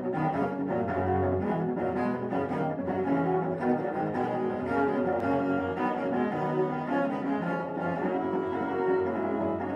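Solo cello playing a melody of held, changing notes.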